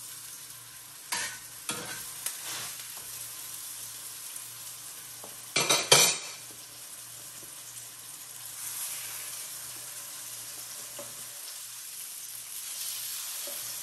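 Pork patties searing in oil in a hot cast iron skillet, a steady sizzle. A few light knocks come in the first few seconds, and a brief louder clatter about six seconds in.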